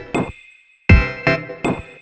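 Electronic background music: rhythmic synthesizer and drum-machine hits, with a brief break of silence about half a second in.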